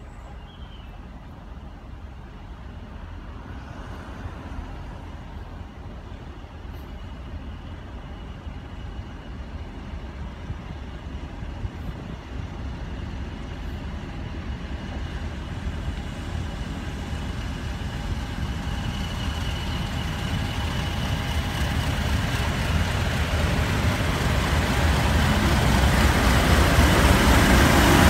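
Class 50 diesel-electric locomotive with its English Electric 16-cylinder engine approaching at speed, growing steadily louder from faint to loud as it nears and draws alongside. A steady high tone over the engine rumble grows clearer in the second half.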